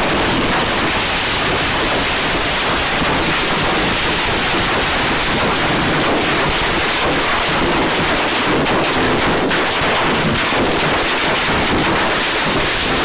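Fireworks going off, a dense, continuous crackle of rapid pops and bangs that runs without a break.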